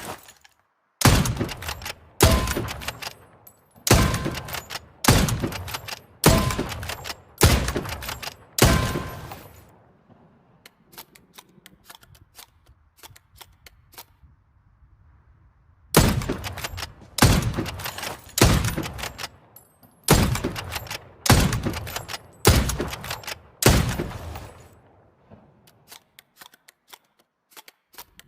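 Hunting rifle shots, two strings of seven fired about a second apart, each shot ringing out for about a second. A quiet pause of several seconds with faint clicks separates the strings.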